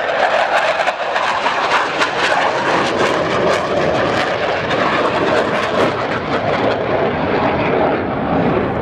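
Blue Angels F/A-18 Hornet jet engines roaring past overhead, a loud steady roar with a ragged crackle through the first several seconds.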